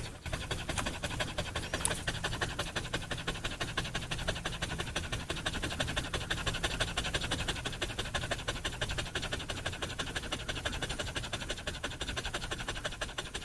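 A dog panting rapidly and steadily, several quick breaths a second.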